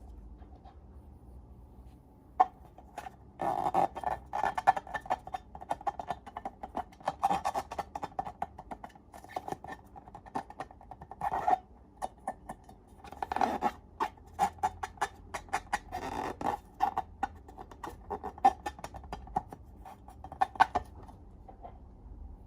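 Hands working glossy slime, giving irregular sticky clicks, crackles and squelches in uneven clusters with short pauses between.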